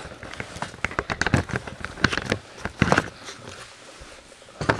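Handling noise from a camcorder being set back on its tripod: a run of irregular clicks, knocks and rubbing, with a louder knock near the end.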